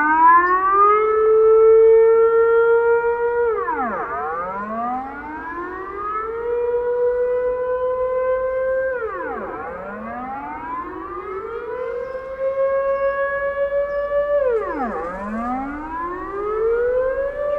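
Dutch air-raid siren wailing: the pitch drops sharply, then climbs back up and holds. This repeats about every five and a half seconds, three drops in all.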